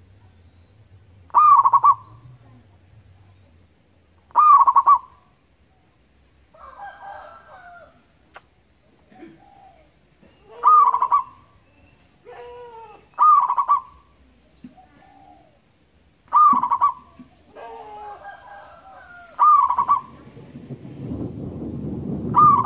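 Local zebra dove (perkutut) cooing: seven loud, short, clear coos about three seconds apart, with softer, lower coos in the gaps. A low rumbling noise rises near the end.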